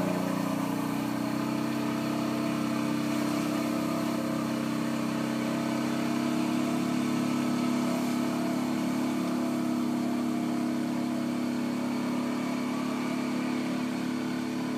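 A small engine running steadily at an even speed, its pitch and loudness holding constant.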